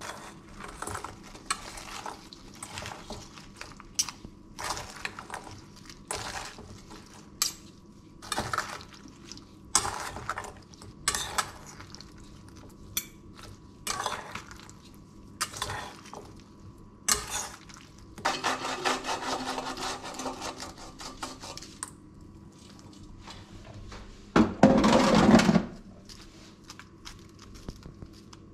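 Salad being tossed in a stainless steel mixing bowl with a metal spoon and fork: repeated clinks and scrapes of metal on the bowl. There is a stretch of quicker, steady scraping partway through, and one louder clatter near the end.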